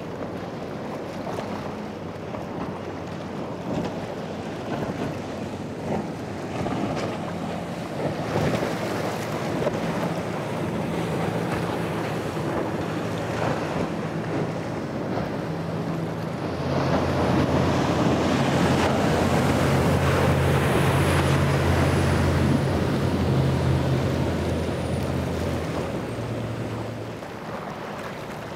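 Powerboat engines running at speed as boats pass through choppy water, their hulls slapping and throwing spray, with wind on the microphone. The engine hum swells louder from about halfway through as a closer boat runs past, then fades near the end.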